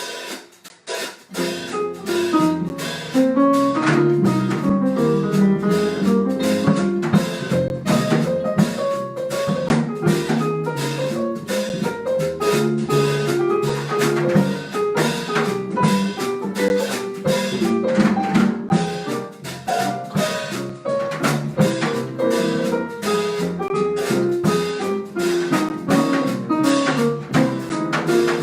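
Live Brazilian-style jazz from a small ensemble: plucked harp melody over a drum-kit beat. After a short pause about a second in, the band starts a tune at full tempo.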